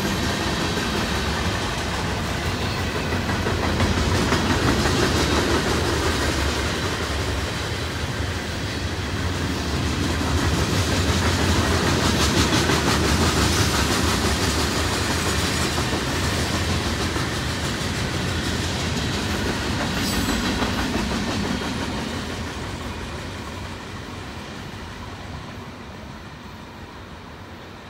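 Freight cars of a mixed manifest train (autoracks and boxcars) rolling past at speed: a steady noise of wheels on rail. About 22 seconds in it begins to fade as the end of the train moves away.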